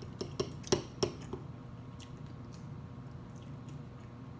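Close-miked eating sounds from a mouthful of seafood grits: about five sharp clicks and wet smacks in the first second and a half, the loudest about three-quarters of a second in, then soft chewing with a few faint ticks.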